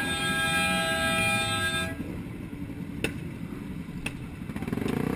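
Vehicle horn held for about two seconds, then cut off, over steady road and engine noise. Two short sharp clicks follow, and an engine note rises near the end.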